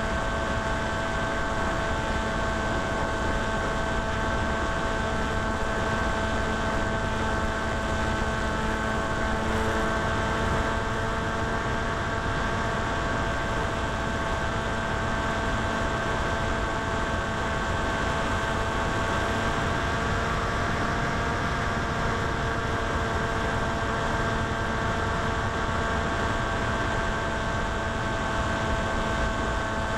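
Steady hum of several fixed tones over a hiss, picked up by the onboard FPV audio of a 900mm Popwing electric flying wing; pitch and level stay unchanged.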